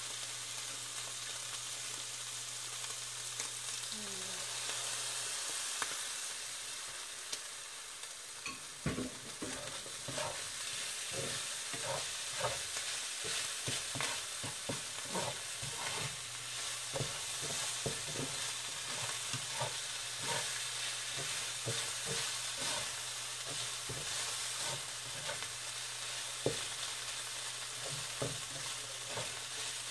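Ground-beef siopao filling sizzling in a pan while a utensil stirs it, with frequent clicks and scrapes against the pan from about eight seconds in. The stirring is working in cornstarch to thicken the sauce.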